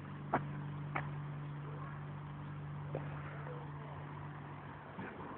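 A steady low hum, with four short sharp clicks spread across it.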